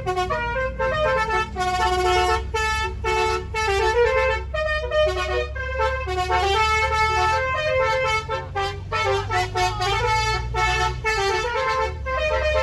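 Angkot minibus's telolet horn, a multi-trumpet musical horn, playing a tune of quickly changing notes, with the vehicle's engine humming low underneath.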